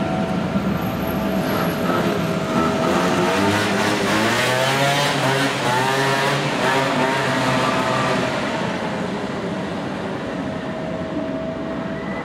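Translohr rubber-tyred tram running along its guide rail, giving a steady electric whine; in the middle, for several seconds, a cluster of whining tones rises and falls in pitch before the sound settles back to the steady whine and fades slightly.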